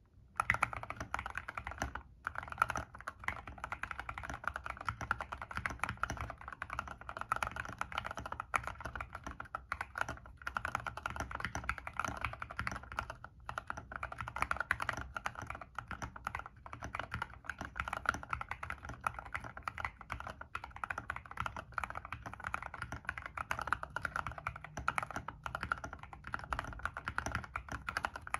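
Fast continuous typing on a mechanical keyboard with lubed Gateron Yellow KS3 linear switches and high-profile MA keycaps: a dense run of deep keystroke clacks with a few brief pauses.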